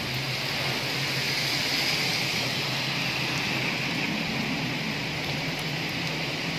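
Heavy rain pouring in strong wind, a steady hiss of rain on trees and road.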